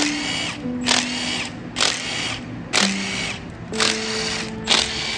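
Background music with a steady beat of about one stroke a second over held notes that change pitch in steps.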